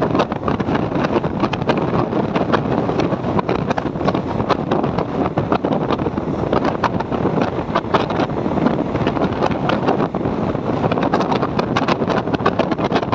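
Express passenger train running at speed, heard from aboard: a steady rush of running noise dense with irregular clicks and rattles from the wheels and coach, with wind on the microphone.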